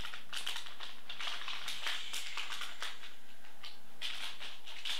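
Anti-static plastic bag crinkling and rustling in quick, irregular crackles as a graphics card is pulled out of it.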